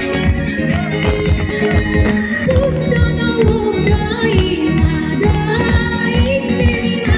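Live amplified band playing a Bulgarian folk horo dance tune with a steady beat; a woman's voice starts singing over it about two and a half seconds in.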